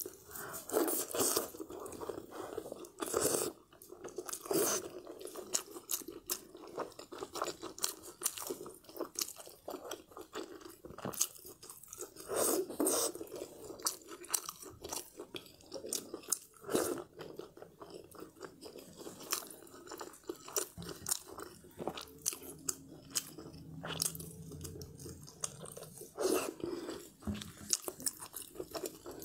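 Close-miked biting and chewing of glazed braised pork belly, a steady stream of irregular short mouth clicks and smacks.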